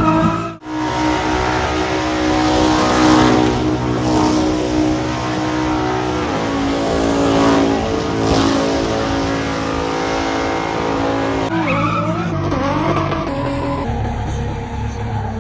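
Car engine held at high revs with tyres spinning and squealing, as in a burnout; its pitch holds fairly steady, with an abrupt cut less than a second in.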